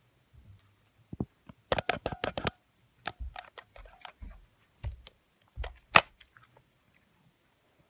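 Scattered clicks and clacks from handling a plastic toy with a hinged, toothed mouth: a quick run of clicks about two seconds in and one sharp, louder click about six seconds in.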